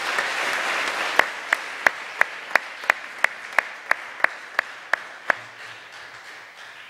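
Audience applauding, starting at full strength and slowly dying away. Through the middle, one person's claps stand out loud and even, about three a second, stopping about five seconds in.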